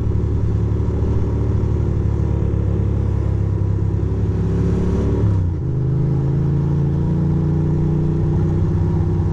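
2006 Ducati Monster 620's air-cooled L-twin engine running under way, its pitch climbing slowly as the bike gathers speed. About five seconds in the pitch drops sharply at a gear change, then it climbs again.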